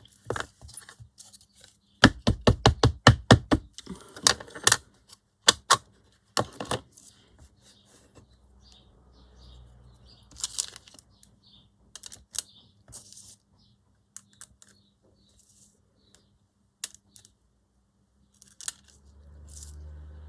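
A stamp tapped repeatedly on an ink pad and paper: a quick run of light taps, about five a second, around two seconds in, more taps over the next few seconds, then scattered single taps and paper handling.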